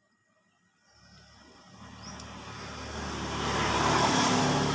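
A motor vehicle passing by on a road, its engine and tyre noise swelling from about a second in to a peak near the end, then beginning to fade.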